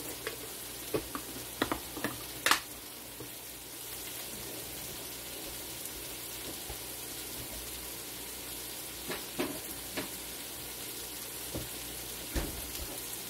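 Chicken and vegetables sizzling steadily in a skillet on the stove. In the first few seconds come sharp clicks as a snap-lock lid is closed on a glass food-storage container, the loudest about two and a half seconds in, and a few fainter knocks come later.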